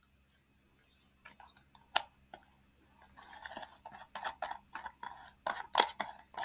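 Small plastic body-butter tub being handled and opened: a few sharp clicks and taps, then from about three seconds in a quick run of scratchy rustling as fingers work at the tub.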